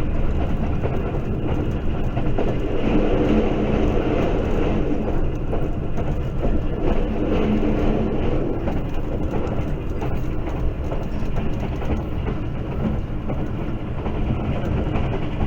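Moving passenger train running on the track: a steady rumble and rail noise with no pauses.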